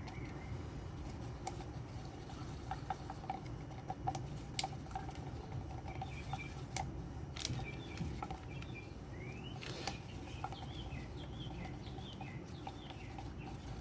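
Light scattered clicks and taps of a stick stirring blue pigment into gel coat in a small container. Birds chirp in short bursts in the background from about halfway through.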